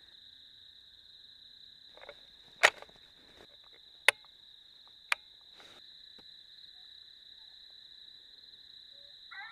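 Crickets chirring steadily at night while a bolt-action rifle is handled and its bolt worked: three sharp metallic clicks, the loudest about two and a half seconds in and the others about four and five seconds in.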